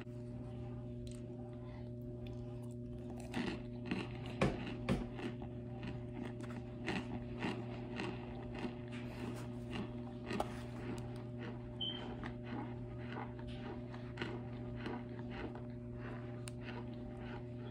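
Crunchy cornstarch chunks being bitten and chewed: a steady run of crisp crunches, loudest about four to five seconds in, over a low steady electrical hum.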